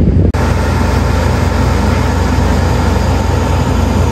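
Airport ground support units, ground power and air-conditioning carts, running with a steady engine drone and a constant whine. There is a brief gap at an edit cut about a third of a second in.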